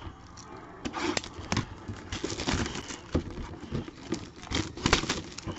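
Clear plastic wrap crinkling and tearing as a sealed cardboard box is unwrapped and handled, in irregular rustles and crackles with the sharpest crackle near the end.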